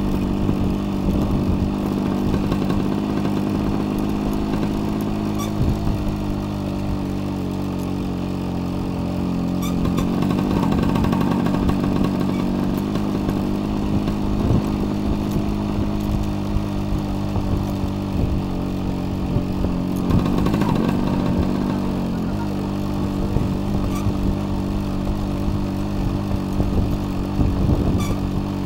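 Small motorcycle engine running steadily at low speed to keep pace with joggers, its pitch shifting briefly twice, about ten and twenty seconds in.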